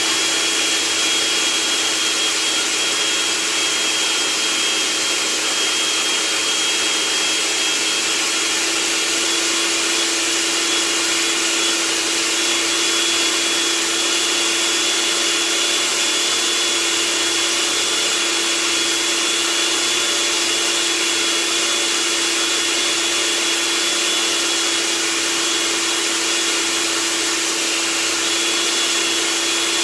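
Electric food processor running steadily, its blade chopping a wet falafel mixture of chickpeas, parsley, cilantro and onion into paste. A constant motor whine that does not change pitch.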